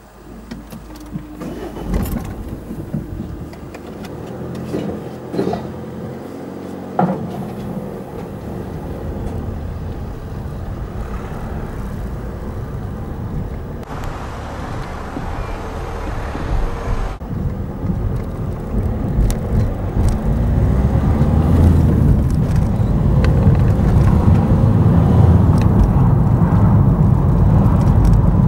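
Car engine and road noise heard from inside the car, growing steadily louder over the second half as it pulls away and gathers speed. A few sharp knocks sound in the first seven seconds.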